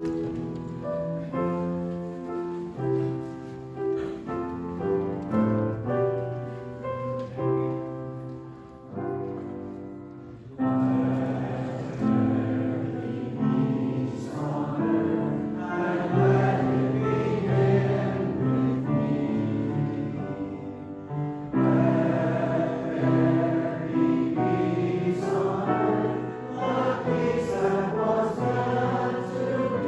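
Choir singing with accompaniment, after an instrumental introduction of about ten seconds in which held chords change about once a second.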